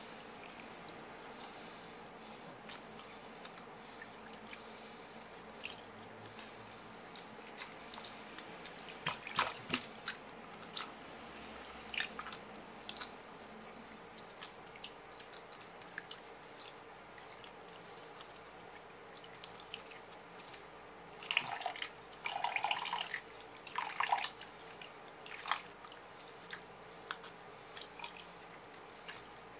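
A thin stream of tap water trickling into a stainless steel bowl, with scattered drips, splashes and wet rubbing as blanched pufferfish pieces are rinsed and rubbed clean with a cloth in the water. The splashing is busiest for a few seconds about two-thirds of the way through.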